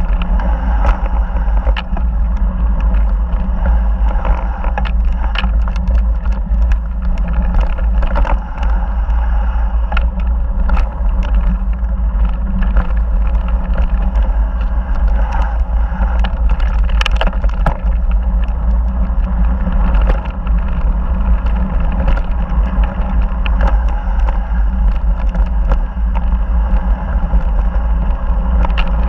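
Mountain bike riding downhill on a gravel singletrack: a steady heavy rumble of wind buffeting the camera's microphone, with frequent clicks and rattles from the tyres on loose stones and the bike jolting over the rough trail.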